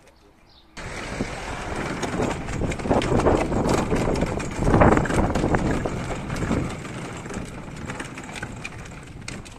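Hard plastic wheels of a Little Tikes Cozy Coupe ride-on toy car rolling and rattling over a rough paved path as it is pushed along. The rumble starts suddenly about a second in, is loudest around the middle and dies down toward the end.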